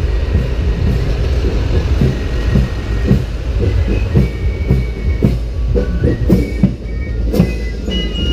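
Steady low rumble of a tractor-drawn wooden parade wagon on the road, with the wagon clattering and knocking as it rolls. A few held tones come in during the second half.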